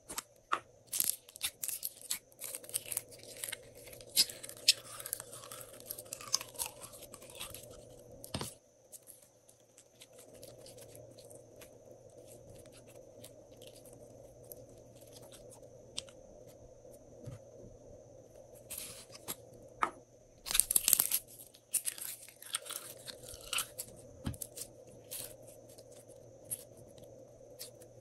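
Hands handling slime and plastic slime containers, giving bursts of crackling, crunching clicks: a busy spell over the first several seconds and another about two-thirds of the way through, with a faint steady hum underneath between them.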